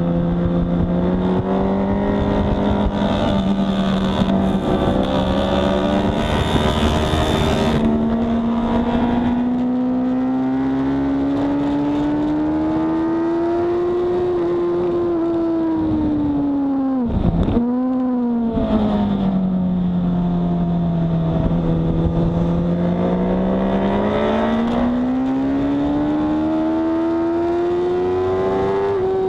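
Sport motorcycle engine pulling hard at track speed, heard from the bike itself over wind rush. The engine note climbs steadily through the first half, dips sharply for a moment a little past halfway, sinks lower, then climbs again toward the end.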